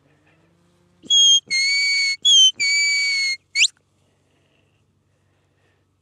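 Stock-dog handler's herding whistle command to his working dog: a short high note and a longer lower note, given twice, then a quick rising note, all within about two and a half seconds.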